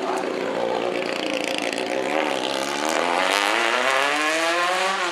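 Engine of an open-wheel single-seater race car accelerating away. Its pitch dips briefly about two seconds in, then climbs steadily as it revs up.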